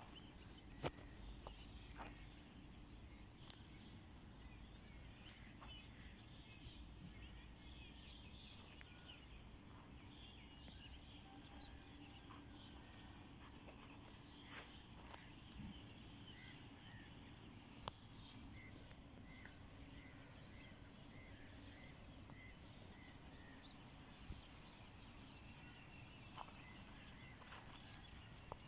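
Faint outdoor ambience: small birds chirping now and then in the distance over a steady low hum, with a few soft clicks.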